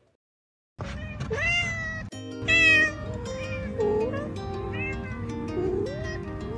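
Two cats meowing in a string of short, rising-and-falling meows, beginning just under a second in and loudest about two and a half seconds in, over background music.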